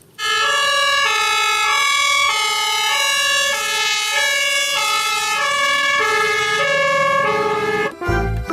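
Toy vehicle's electronic siren tune: a run of steady electronic notes changing pitch about twice a second, starting suddenly and stopping near the end.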